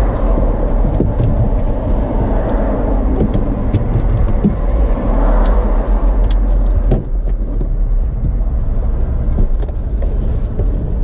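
Steady low vehicle rumble heard inside a car's cabin, with a few light clicks scattered through it.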